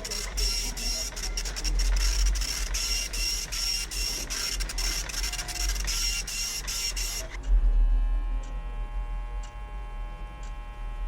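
Hospital room ambience: a steady low rumble under a hiss with rapid, irregular clicking for about seven seconds. It then cuts suddenly to a steady hum of several equipment tones with a clock ticking about once a second.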